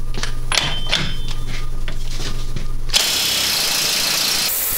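Cordless impact wrench running for about two seconds, starting about three seconds in, spinning a front axle nut off a wheel hub; the nut comes off easily. Before it, a few scattered clicks and knocks.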